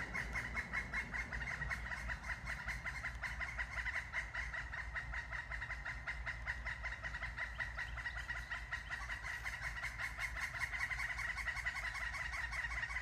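Two red-headed woodpeckers calling back and forth: a rapid, steady chattering run of notes that goes on without a break.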